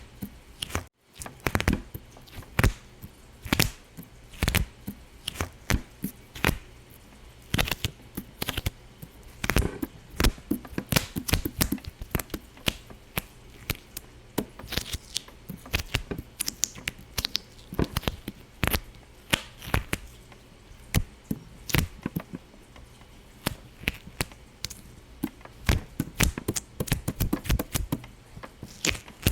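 Rapid, irregular sharp pops and clicks, several a second, with a brief break about a second in.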